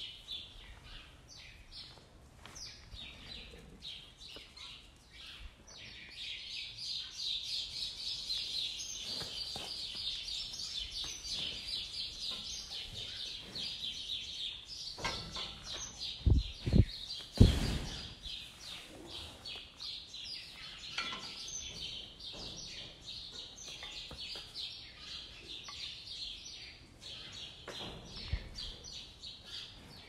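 A dense chorus of many small birds chirping rapidly and continuously. A little past the middle, three loud low thumps come in quick succession, with a softer thump near the end.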